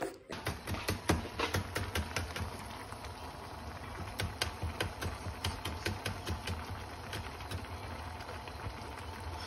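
Ramyeon broth boiling in a pan on a gas stove: irregular bubbling pops, several a second, over a steady low hum.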